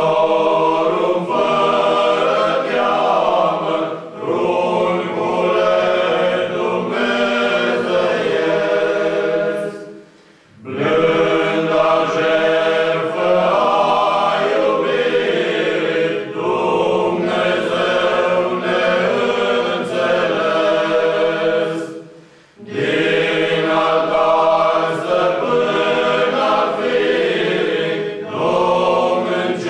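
Men's choir singing a cappella, many voices in harmony, in long phrases. The singing breaks off briefly about ten seconds in and again about twenty-two seconds in, then the next phrase starts.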